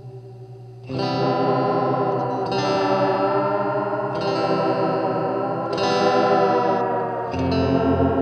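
Electric guitar, a Squier Bullet Stratocaster, played through an EarthQuaker Devices Space Spiral modulated delay pedal into a Fender Super Champ XD amp. Faint repeats fade until chords are strummed about a second in, then again roughly every one and a half seconds, each trailed by modulated, slightly grainy echoes.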